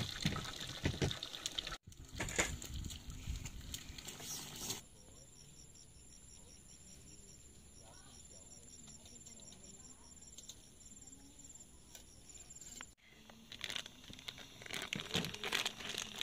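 Rustling and clattering handling noises, then about eight seconds of insects trilling, a steady high buzz with a rapid pulsing chirp, then more rustling and clattering.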